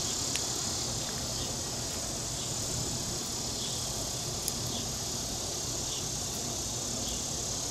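Steady chorus of insects, an even high buzz, with a few faint ticks from the knife work on the frog.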